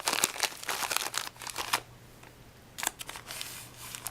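Packets of craft trim being handled: dense rustling and clicking for the first second and a half, then a single sharp click and a brief rustle near the end.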